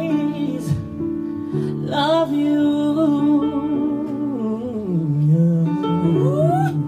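A man singing live into a microphone in long held notes that slide in pitch, dropping lower around the middle and gliding up near the end, over sustained chords from the band.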